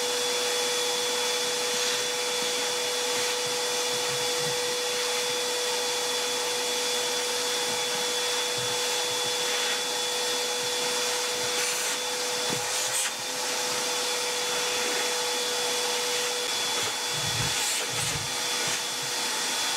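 Shop vacuum running steadily with a constant motor whine as its hose sucks styrofoam packing beads off a wooden clock case, with a few brief knocks midway. It switches off at the end.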